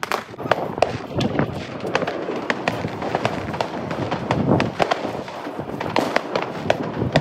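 Many fireworks going off at once: a dense, irregular string of bangs and crackles from aerial shells and firecrackers, with no let-up.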